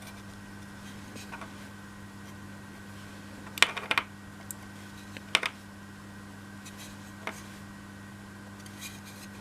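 A few light clicks and taps from small laser-cut MDF model parts being handled and glued with PVA, the loudest cluster about halfway through, over a steady low hum.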